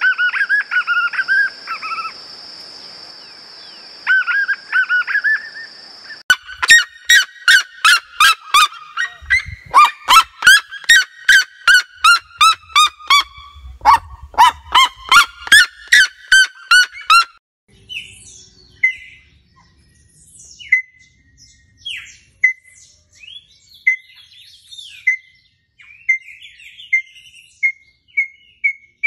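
A white-eared puffbird calls for the first few seconds over a steady high whine. From about 6 s a red-legged seriema gives its loud yelping series of sharp repeated notes until about 17 s. Then come softer scattered chirps and a tinamou's run of even notes at one pitch that quickens toward the end.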